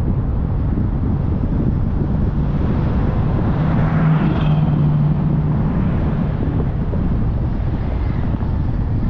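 Steady rumble of a car driving along a city street, with wind buffeting the microphone; about four seconds in, a passing vehicle swells up briefly with a steady engine hum for about two seconds.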